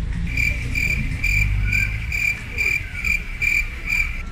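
Cricket chirping sound effect: about nine evenly spaced high chirps, roughly two a second, the stock 'awkward silence' gag, over a low rumble.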